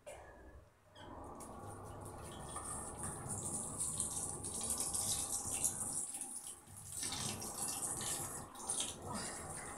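Tap water running into a sink while a face is washed with the hands, with irregular splashing; the water sound steps up about a second in.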